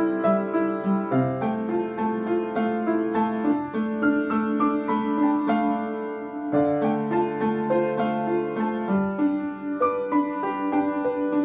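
Upright piano played with both hands: a steady stream of melody notes over lower bass notes.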